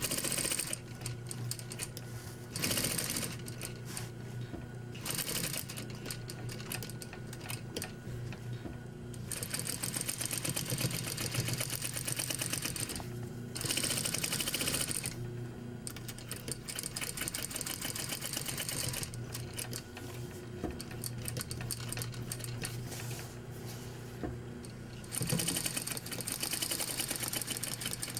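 Industrial flatbed lockstitch sewing machine stitching tape onto layered vinyl and cloth. It runs in fast stitching stretches that stop briefly several times and start again, with a louder run near the end.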